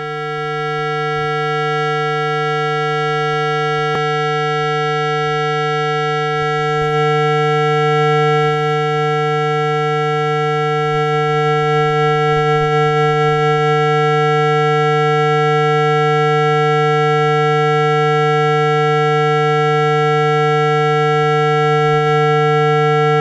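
Speaker-cleaner tone: a single steady low buzzing tone with many overtones. It swells in over the first couple of seconds and then holds at one pitch, played to vibrate a phone speaker's cone and shake out water and dust.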